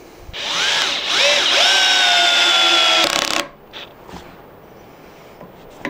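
Bosch GSR 12V-15 FC cordless drill-driver driving a 160 mm × 6 mm wood screw into a timber beam. The motor's whine rises and falls twice as the trigger is worked, then runs on for about a second and a half with its pitch sagging slightly under the load, and stops about three and a half seconds in.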